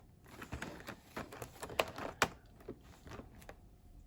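Product packaging being handled: a run of irregular small clicks and light rustles, with two sharper clicks about two seconds in.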